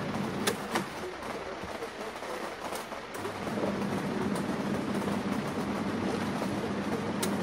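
Tangarus Cadiz twin-tub portable washing machine running its wash cycle: the wash-tub motor hums steadily while water and clothes churn. The hum dies down for a couple of seconds and picks up again about three and a half seconds in, with a few sharp clicks.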